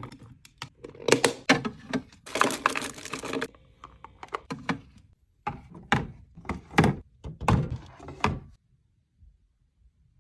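Items being set into a mini fridge during a restock: a run of clunks and clicks, with a longer rustling, scraping stretch a couple of seconds in.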